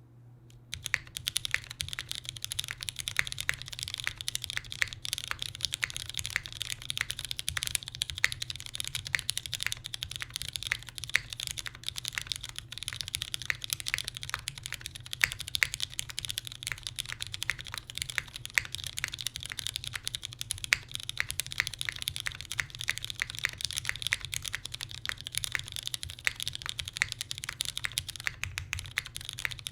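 Steady, continuous typing on a custom mechanical keyboard with West German vintage Cherry MX Black linear switches (lubed with 205g0), an aluminum full plate, GMK keycaps and no case foam. The fast, irregular key clicks start about a second in.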